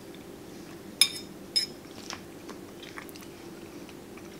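Metal fork clinking twice against a ceramic plate, sharp and ringing, then faint chewing of a mouthful of pot pie with flaky crust.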